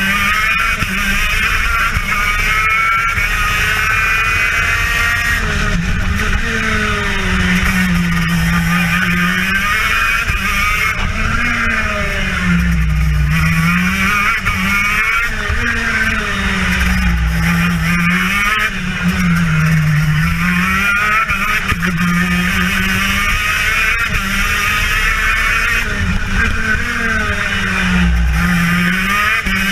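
TM KZ10B 125cc two-stroke gearbox kart engine at racing speed, heard close on board, its revs climbing and dropping over and over every few seconds as the kart brakes for corners and accelerates out of them.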